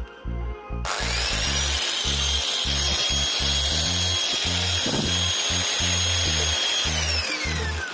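Makita angle grinder switched on about a second in, its motor whining at a steady high pitch as it spins a steel roller mounted on its spindle. It is switched off near the end, and the whine falls as the motor winds down. Background music with a steady beat plays underneath.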